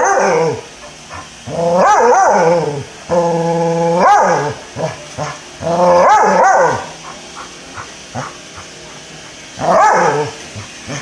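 A dog barking in a string of about five drawn-out, howling calls that rise and fall in pitch, each lasting about a second, with short pauses between them; one call, about three seconds in, is held at an even pitch.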